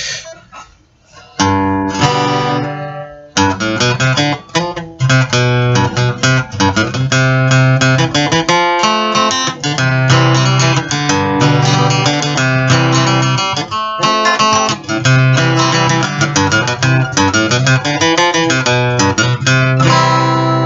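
Solo acoustic guitar playing an instrumental intro. A few separate chords ring out in the first three seconds, then the playing runs on steadily over a sustained low bass.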